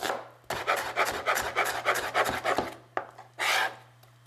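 Chef's knife chopping a red onion on a plastic cutting board: quick strikes, about five a second, then a single longer sound of about half a second near the end.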